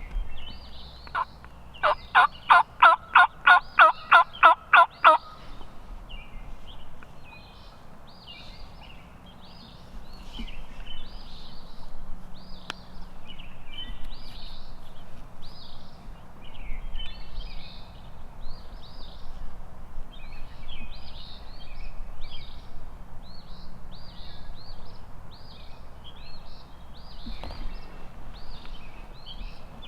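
A loud series of about ten turkey yelps, about three a second, lasting some four seconds. After it, songbirds sing in the dawn chorus.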